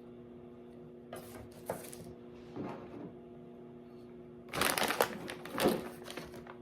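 Crinkling and rustling of food being handled, in a short burst about a second in and a louder stretch of crackles midway through the second half, over a steady low electrical hum.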